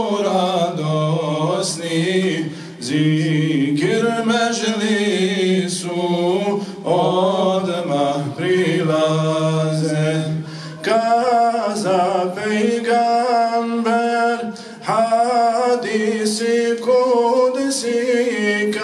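Unaccompanied male voices singing a Bosnian Islamic devotional hymn (ilahija) into a microphone. A lead voice draws out long, wavering, ornamented phrases over a steady low held note, with short breaths between phrases.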